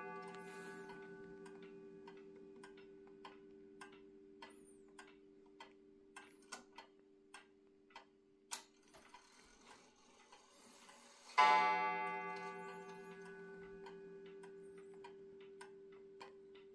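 Antique FMS (Mauthe) regulator wall clock ticking steadily, about one and a half ticks a second, while the ring of an earlier strike fades away. About eleven seconds in its gong strikes once, loud, and rings on slowly dying away under the ticking.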